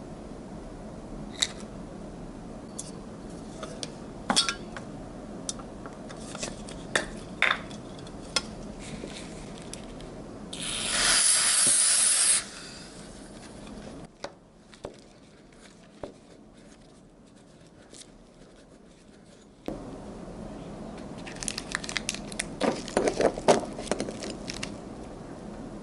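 Small metal parts of a motorcycle starter motor being handled, with scattered light clicks and taps. About ten seconds in, a hiss of spray lasts about two seconds. Near the end comes a quick run of small metallic clatters.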